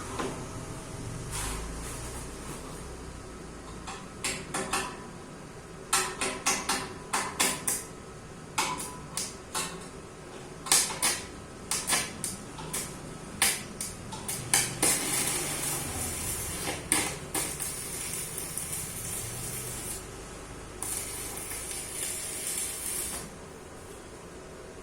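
Metal clanking and knocking as steel parts of a dough mixer are worked on and handled, in irregular bursts of sharp strikes, with two stretches of hiss midway and near the end.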